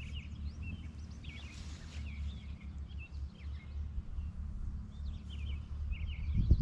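Several songbirds chirping and trilling in short, scattered calls, over a steady low rumble.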